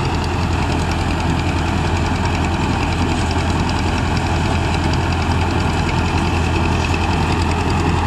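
Farmtrac 6055 tractor's four-cylinder diesel engine running steadily while it drives a tractor-mounted mini combine harvester cutting wheat.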